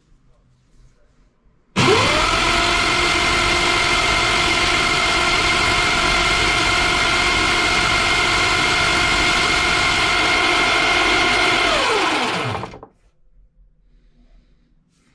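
Battery-powered electric motor of a home-built motorcycle roller starter, driving its rollers through a roller chain. It spins up with a quick rising whine about two seconds in, runs at a steady pitch for about ten seconds, then winds down with a falling whine and stops.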